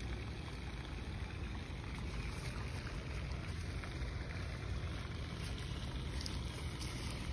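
Wind buffeting the phone's microphone, a steady low rumble that flickers unevenly.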